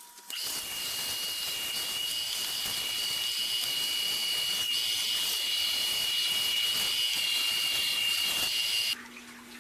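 Power sander running on wood: a steady hiss with a high whine that starts right away and cuts off about nine seconds in.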